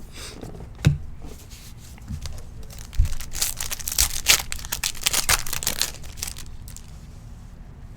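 Foil wrapper of a trading card pack being torn open and crinkled. A few sharp clicks come first, then a dense crackling in the middle few seconds.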